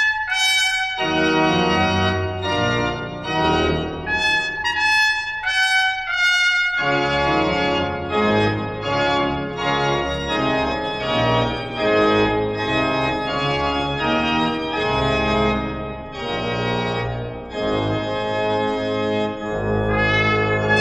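Trumpet and pipe organ playing a Baroque trumpet voluntary, the trumpet leading in short bright phrases over the organ. The sound grows fuller about seven seconds in.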